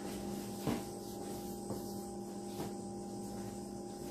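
Steady electrical hum in a quiet room, with a few faint knocks, the clearest about a second in.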